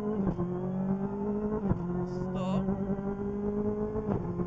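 Ford Fiesta R5 rally car's turbocharged four-cylinder engine heard from inside the cabin, pulling under load with its pitch climbing slowly. The pitch dips sharply with a short knock just after the start and again near the end, as at quick gear changes.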